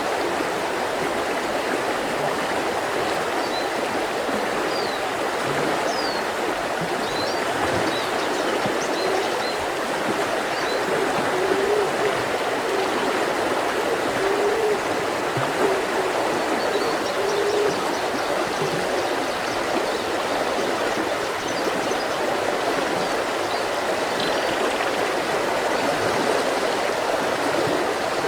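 Mountain river rushing steadily over stones, with faint high bird chirps scattered above the water noise.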